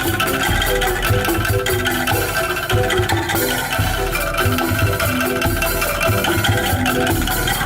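Bamboo calung ensemble playing a fast, rhythmic tune: short struck bamboo notes over a steady drum beat and bass.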